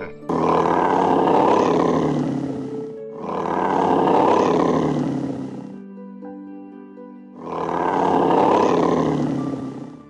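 Three long, loud animal roars, each lasting about two and a half seconds, over background music with held notes.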